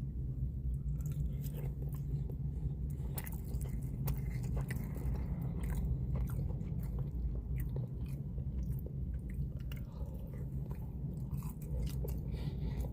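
A person chewing and biting into fried sesame chicken close to the microphone, with small wet clicks and crunches of chewing over a steady low hum.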